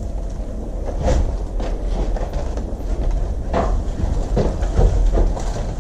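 A steady low rumble of movement and handling noise on a worn camera, with several sharp knocks and clicks scattered through it.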